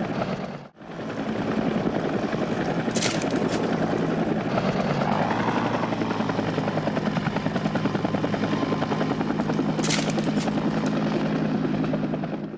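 Helicopter rotor beating steadily, with a fast flutter over a low drone. It drops out briefly just under a second in.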